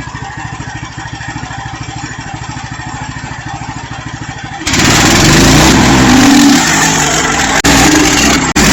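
Portable band sawmill's engine running with an even, rapid pulse; about four and a half seconds in the sound cuts suddenly to a much louder, denser noise of the mill running under load, with two brief dropouts near the end.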